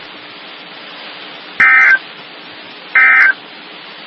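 Emergency Alert System end-of-message data bursts on NOAA Weather Radio: two short, shrill digital warbling chirps about a second and a half apart, over a steady radio hiss. These are the coded bursts that mark the end of the Amber Alert broadcast.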